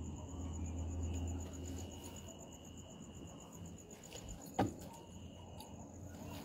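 Crickets chirping steadily in a fast, high pulsing trill. A low hum fades out after the first two seconds, and there is a single sharp click about four and a half seconds in.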